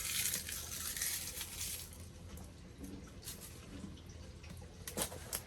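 Scrap pine being loaded into a small stainless steel wood stove: a rush of rustling, crackling noise for about the first two seconds, then a few light clicks and knocks, the sharpest near the end.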